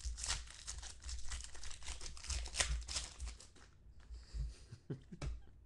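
Foil wrapper of a 2013 Topps Finest football card pack being torn open and crinkled, a dense crackling for about the first three and a half seconds. After that it is quieter, with a few short clicks from the cards being handled.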